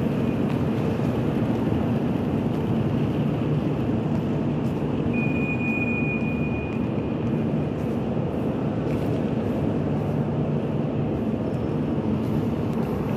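Steady low rumble of an underground metro station concourse, with a high beep held for about two seconds a little past the middle.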